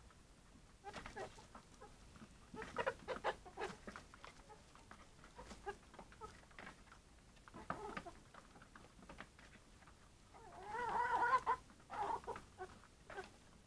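A flock of young Harco and Tetra laying-hen pullets making short, scattered calls, with a louder run of calls about eleven seconds in.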